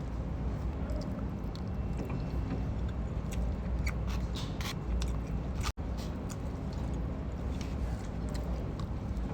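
A person chewing food, with short clicks of the mouth, most of them a few seconds in, over a steady low hum. The sound drops out for an instant about six seconds in.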